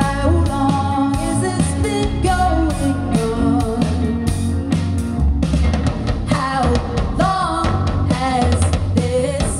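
Live rock band playing: a singer's melody over electric guitar and a drum kit.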